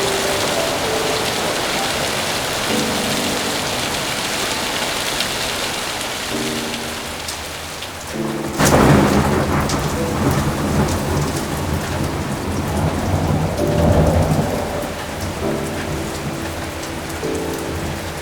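Steady rainfall with thunder: a sudden sharp thunderclap about eight and a half seconds in, followed by a long low rolling rumble that swells again around fourteen seconds before fading back under the rain.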